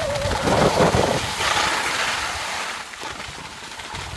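Wind buffeting the microphone and skis sliding over snow on a downhill run, with a louder hiss of snow scraping about a second and a half in; it quietens near the end.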